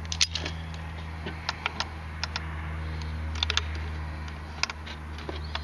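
Light metallic clicks and taps, scattered irregularly, as thin vice grips are fitted against a snowmobile starter's pinion gear and collar, over a steady low hum.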